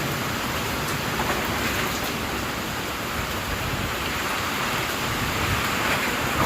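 Heavy typhoon rain pouring down steadily, swelling slightly near the end.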